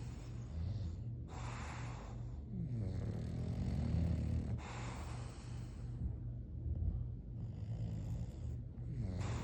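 English bulldog snoring in slow, rhythmic breaths: a low rattling drone runs throughout, and an airy, hissing breath comes every three to four seconds.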